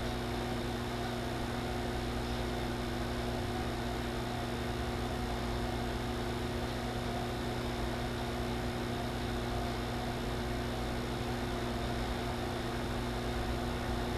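Steady electrical hum with a constant hiss, unchanging throughout.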